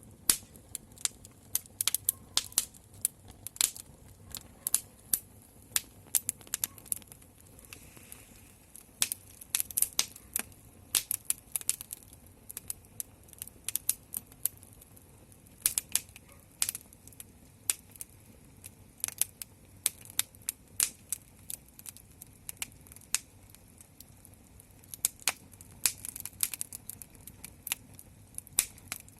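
Wood fire crackling: sharp, irregular pops and snaps, sometimes several close together.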